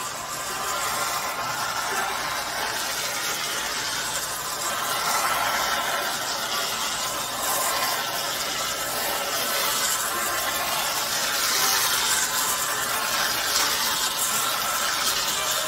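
Aerosol can of whipped cream spraying onto a paper plate: a continuous hissing spray.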